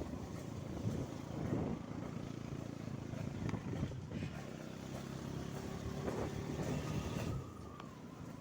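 Motorcycle engine running under way with road and wind noise; it drops to a quieter level about seven seconds in, as the throttle comes off.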